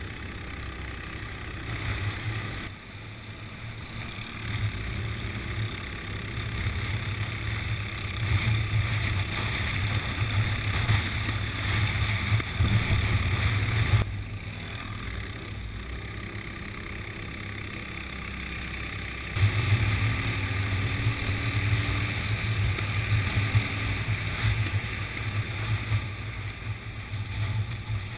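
Go-kart engine heard from an onboard camera on the kart, running hard on the throttle and easing off twice, briefly about three seconds in and for several seconds from about fourteen seconds in, before picking back up. A steady hiss runs over it.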